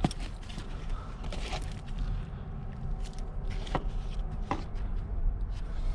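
Handling noise from working loose a car's rear seat belt hardware: a sharp click, then a few scattered clicks and knocks over a low rumble.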